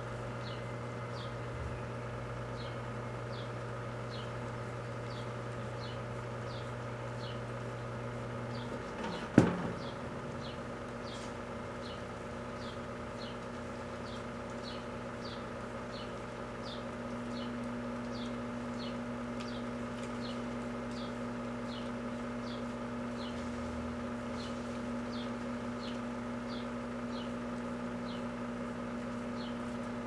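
Kenmore microwave oven running with a steady hum while a whole unpierced spaghetti squash cooks inside. About nine seconds in comes a single sharp pop, the squash starting to burst under the heat. Short high chirps repeat about once a second in the background.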